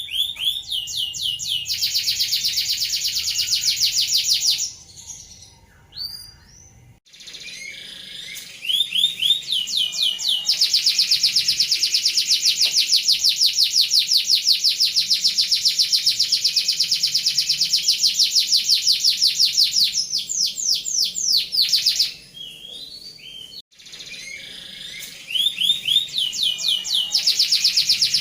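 Domestic canary singing its rolling song: long, very fast trills with each roll opening on a few separate rising notes, broken by short pauses. The longest roll runs about ten seconds.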